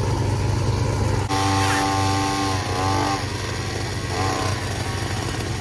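MechMaxx D150 wood chipper's gas engine running steadily. About a second in, a louder, rougher noise with a wavering pitched whine joins for a couple of seconds, and returns briefly near the end, as material is fed through and chipped.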